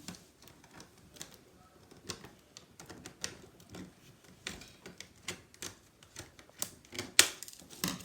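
Hard plastic toy packaging being handled: irregular sharp clicks and crackles as a toy's hands are worked free of the box insert, growing louder near the end.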